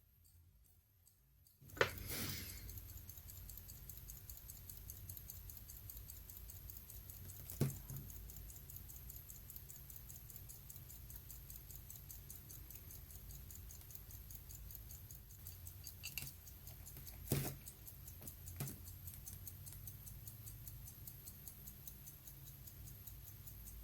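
Hamilton-made Ball railroad grade 999 pocket watch ticking steadily, starting about two seconds in. A few sharp clicks come over it: the loudest just as the ticking begins, others about eight seconds in and three more between sixteen and nineteen seconds.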